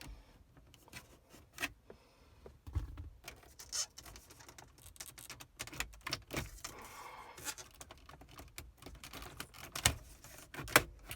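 Plastic dashboard trim panel being pried up with a flathead screwdriver: irregular clicks, ticks and short scrapes as the metal blade works under the trim and its clips give, with a couple of sharper clicks near the end.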